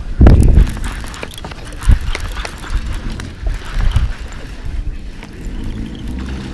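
Wind buffeting the microphone with a low rumble. A heavy knock comes just after the start, with lighter knocks about two and four seconds in and scattered small clicks of gear being handled.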